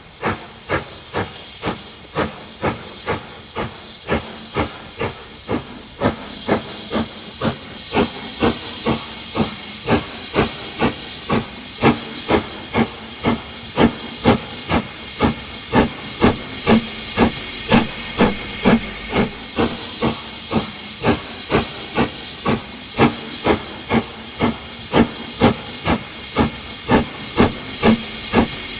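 LMS Black 5 4-6-0 steam locomotive No. 45428 working a train, its exhaust beating in a steady rhythm of just under two chuffs a second over a continuous steam hiss. The beats get louder about six seconds in as the engine approaches and passes close by.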